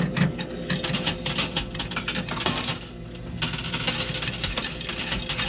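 Quarters dropping into a coin pusher arcade machine and clinking onto the coin-covered playfield. It is a rapid run of metallic clicks that thins out briefly about halfway through.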